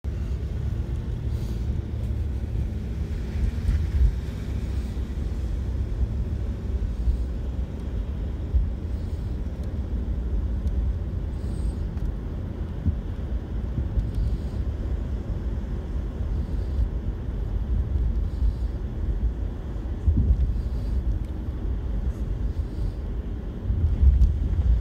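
Steady low rumble of a moving car heard from inside the cabin, with a few louder thumps.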